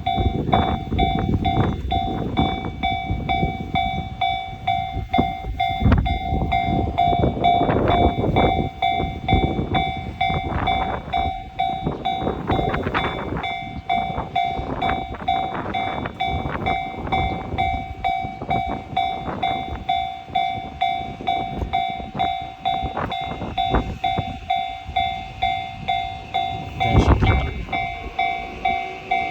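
Japanese railway level-crossing alarm ringing its rapidly repeating "kan-kan" tone while a train rumbles through the crossing, its wheels knocking over the rail joints.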